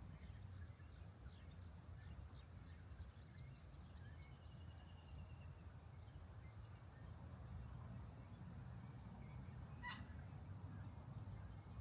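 Quiet ambience: a steady low rumble with birds chirping faintly, including a short rapid trill about four seconds in and a sharper single call near ten seconds.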